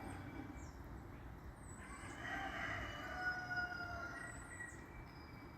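A rooster crowing once, a single long drawn-out crow about two seconds in, over faint high chirps of small birds.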